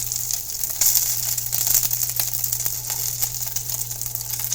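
Butter sizzling and crackling in a frying pan as a cheese-filled flour tortilla quesadilla fries, a dense hiss full of fine pops. A steady low hum runs underneath.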